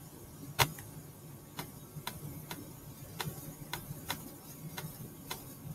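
A computer mouse button clicked over and over: a string of sharp, dry clicks about every half second, the first one the loudest.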